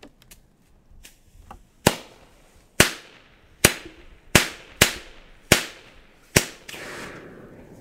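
Firecrackers going off: seven sharp bangs at uneven intervals, roughly one a second, then a burning fuse hissing briefly near the end.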